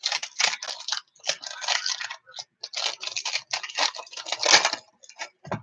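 Foil wrappers of football trading-card packs crinkling and tearing in a run of irregular rustles as hands handle the packs and rip them open.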